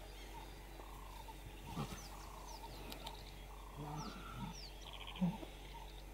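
Lion cubs growling as they play-fight: several short, low growls, the loudest about five seconds in.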